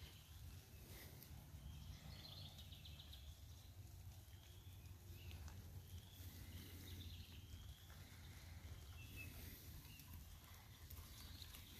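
Quiet garden ambience: faint, scattered calls of distant birds over a steady low rumble.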